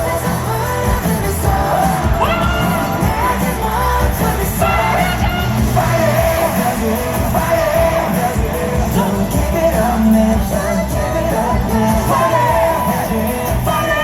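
Live concert music at full volume through a PA system, with a heavy bass line, singing and yells from the crowd.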